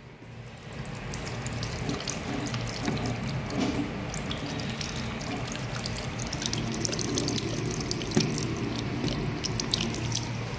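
Commercial washbasin tap running, with water splashing over hands and into the basin. It starts about a second in and then runs steadily, flecked with small splashes and drips.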